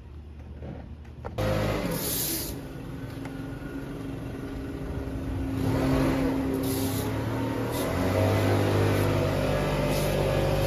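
An engine starts up suddenly about a second and a half in and runs steadily, growing louder about six seconds in.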